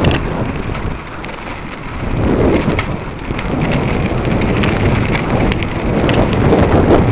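Wind buffeting the microphone over the rolling rumble of bicycle tyres on a rough trail, with scattered crackles and ticks, as the bike is towed along by the dog.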